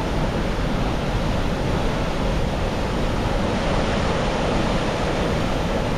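Bridal Veil Falls running high, a steady rush of falling water.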